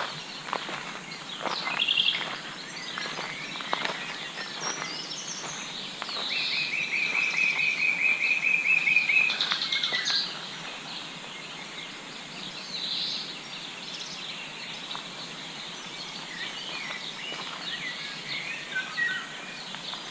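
Wild birds singing and calling in spring. One bird gives a long, fast trill about six seconds in that lasts about three seconds and is the loudest sound, over a chorus of shorter chirps and song phrases.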